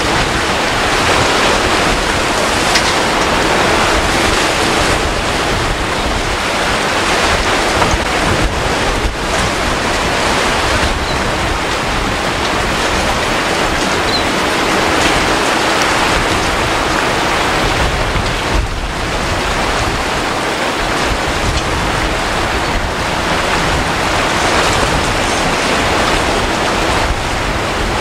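Choppy sea and breaking surf washing steadily, with wind buffeting the microphone.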